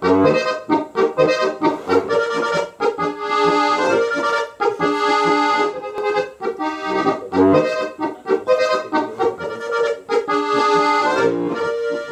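Background music: a traditional folk tune led by accordion, with chords and melody over a steady rhythm.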